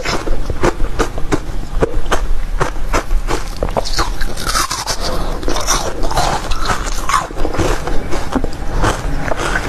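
Green basil-seed ice being bitten and crunched, an irregular run of sharp cracks and crunches.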